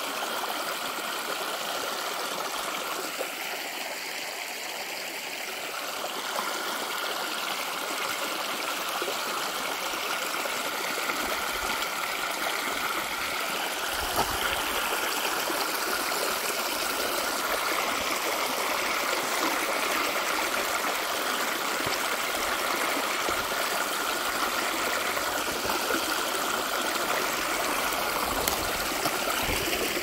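Shallow rocky creek running and trickling over stones in small cascades, a steady water sound.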